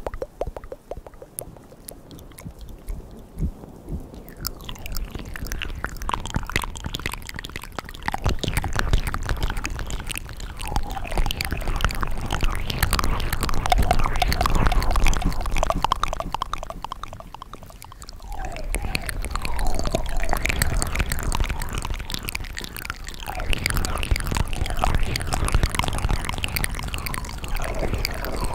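ASMR mouth sounds: rapid wet clicks, smacks and slurps of lips and tongue. They are quieter for the first few seconds and pause briefly about two-thirds of the way through.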